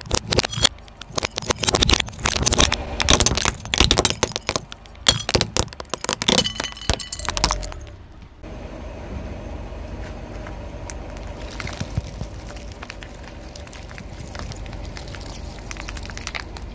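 Car tyre rolling over hard plastic toy wristwatches, crushing them in a dense run of loud cracks and snaps. After an abrupt cut about eight seconds in, a quieter steady crackle with scattered small pops as a tyre squashes a bed of water-gel beads.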